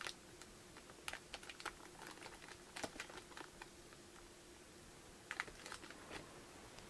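Faint scattered crinkles and clicks of a small plastic zip-lock bag of phone repair tools, plastic pry tools and small screwdrivers shifting inside, being handled on a table.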